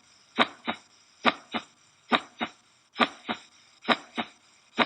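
Normal heart sounds played back, a steady 'dum loop' (lub-dub): five pairs of short thuds, the first of each pair louder, a little more than one pair a second. The first sound is the closing of the mitral and tricuspid valves, the second the closing of the semilunar valves.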